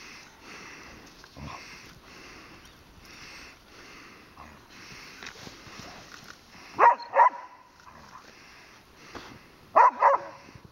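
Small dog barking: two quick pairs of short, sharp barks about three seconds apart. Under them is a faint rhythmic rustling.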